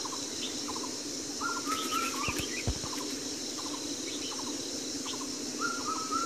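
Wild birds chirping repeatedly, with a short phrase of flat whistled notes given twice, over a steady background hiss. Two brief low thumps come about two and a half seconds in.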